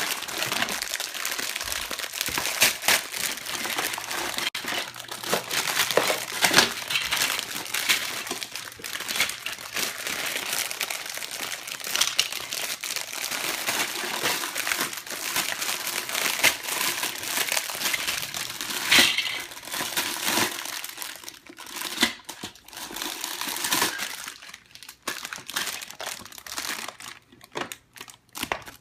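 Plastic Lego parts bag crinkling and rustling as it is handled and opened, with many small sharp crackles. It thins out to scattered crinkles in the last few seconds.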